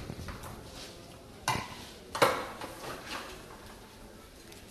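A metal ladle and tongs clanking against a steel roasting tray and bowl while scooping roasted chicken bones, with two sharp clinks about one and a half and two seconds in.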